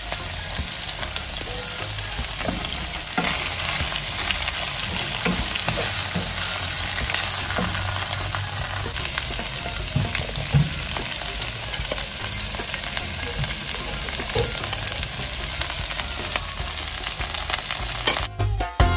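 Pak choy, baby corn and peppers sizzling in hot oil in a nonstick frying pan while being stirred with a wooden spatula: a steady frying hiss with scattered scrapes of the spatula on the pan. It cuts off suddenly near the end.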